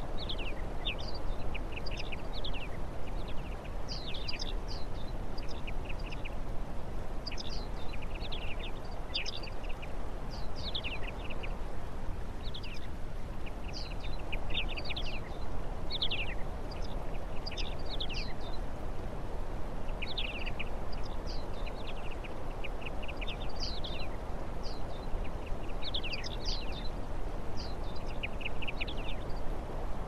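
Small songbirds calling and singing all through, in quick phrases of short high chirps and falling notes, over a steady low background rumble.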